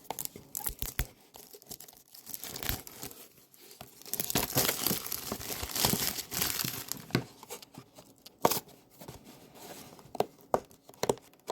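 Packaging on a mystery toy box being torn and crinkled open by hand: irregular rips and clicks, with a longer stretch of tearing about four seconds in.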